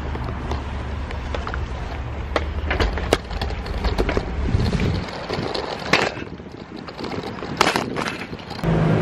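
Riding a bicycle, with wind rushing over the microphone and the bike rattling, and sharp clicks and knocks scattered through. The low rumble drops away about five seconds in, and a steadier low hum cuts in just before the end.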